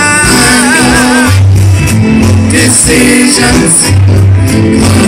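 Live band playing: a singer's voice with vibrato over electric bass, drums with cymbals and keyboard. The voice is clearest in the first second or so, then the bass and drums carry it.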